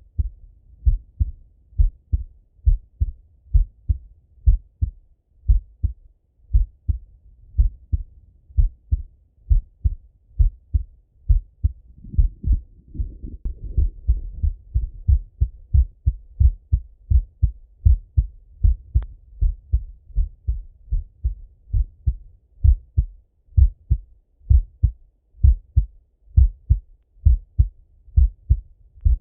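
A man's heartbeat heard through a Littmann stethoscope chestpiece: a steady run of low, muffled paired lub-dub thumps at an even, calm pace. A soft rushing noise lies under the beats about halfway through.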